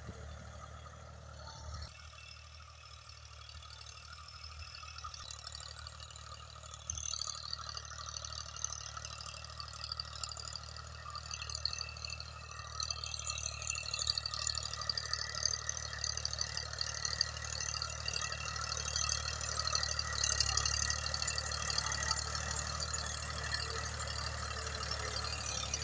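Massey Ferguson 240 tractor's three-cylinder diesel engine running steadily under load as it pulls a tine cultivator through the soil, growing louder over the course of the sound as the tractor comes closer.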